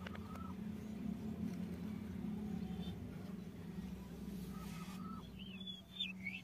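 Birds chirping in the background, short rising and falling calls that start about two-thirds of the way in, over a steady low hum.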